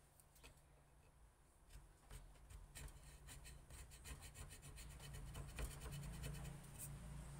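Faint scratching of a knife point scoring crosshatch grip lines into a wooden knife handle, in many quick short strokes that come thicker from about two seconds in. A low steady hum runs underneath.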